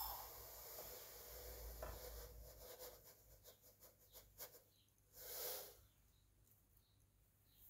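Granulated sugar pouring into a metal measuring cup: a faint hiss of running grains for the first few seconds, then scattered ticks as the cup fills, and a brief rustle about five seconds in.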